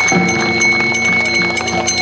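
Live Korean traditional music: held, pitched notes that change near the start, over short percussion strikes repeating several times a second.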